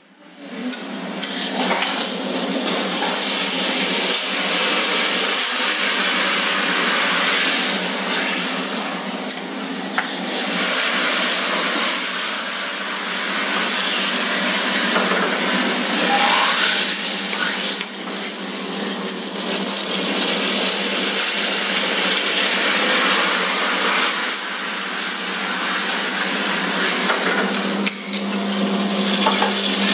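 Steady whirring and hissing of bakery machinery, from a motor-driven paddle mixer stirring batter in a stainless steel tank and a wafer-baking press at work. There is a steady low hum that grows stronger near the end, and a brief rising squeak about halfway through.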